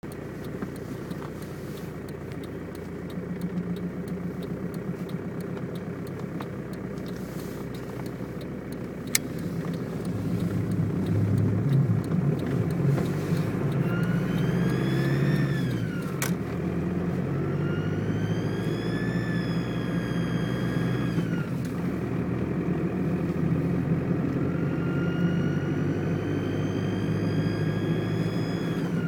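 1998 Volkswagen Jetta's 1.9 TDI turbodiesel engine running, with a whistle that rises and falls in pitch three times as the engine is worked. This is the weird sound the owner can't identify; he wonders whether it is an exhaust leak, a boost leak or a blown turbo. Two sharp clicks, near the start and in the middle.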